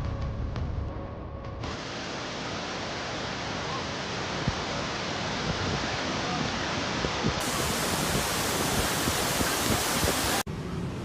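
Steady rushing roar of storm noise, wind or water with no clear tone, spliced from several clips that cut over about 2, 7 and 10 seconds in.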